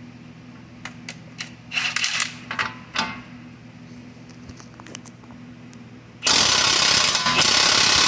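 Metal tools clinking and a socket being fitted, then about six seconds in an impact wrench starts hammering loudly on the 32 mm front axle nut to break it loose.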